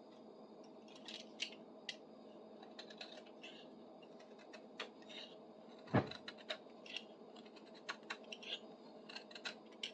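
Faint, scattered light clicks and short scrapes of hand work on a replacement tool handle being shaved down and test-fitted, with one louder knock about six seconds in.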